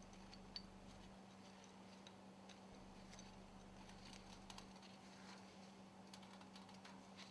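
Near silence: faint steady hum with scattered faint light clicks.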